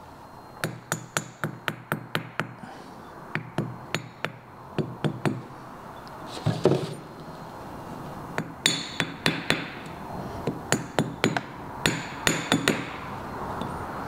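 Light, quick taps of a screwdriver on a piston and aluminium cylinder, in irregular clusters of several taps each, with a brief scrape or two between them. The tapping works the compressed piston rings down into the cylinder bore of a Vespa 150 3V engine.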